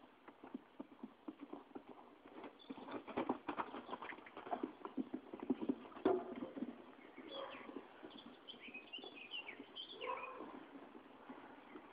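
Hoofbeats of a mare cantering round a jumping course on a soft arena surface, a quick run of dull thuds that is loudest in the middle. Bird chirps come in over the second half.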